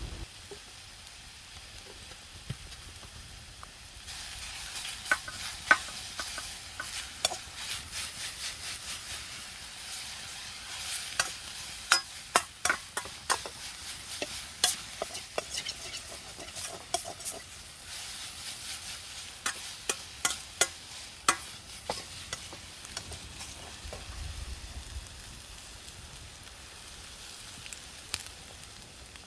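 Champon ingredients (vegetables, pork and kamaboko fish cake) stir-frying in a pan over a campfire: steady sizzling that grows louder about four seconds in, with many sharp clacks and scrapes of a utensil against the pan through the middle of the stretch.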